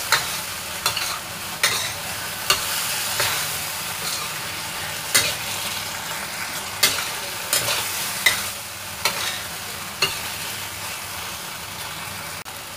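Celery and chicken stir-frying in a stainless steel wok: a steady sizzle, with the spatula scraping and knocking against the pan every second or so.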